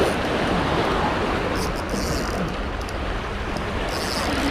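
Steady rush of wind and sea wash on the microphone, an even noise with no distinct events.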